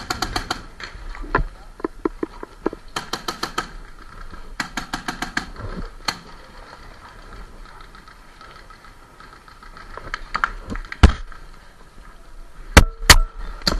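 Paintball markers firing: several rapid strings of shots, about ten a second, in the first half, then a few louder single shots near the end.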